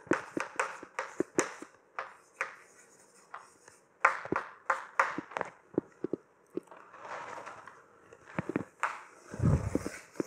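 Chalk writing on a blackboard: quick taps and scrapes as each stroke is made, in two spells, then paper handled and a few footsteps near the end.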